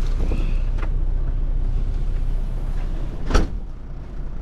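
Folding aluminium bunk ladder being stowed against the upper bunk: a faint click just under a second in and a sharp metal clack about three and a half seconds in as it is latched, over a steady low hum in the cab.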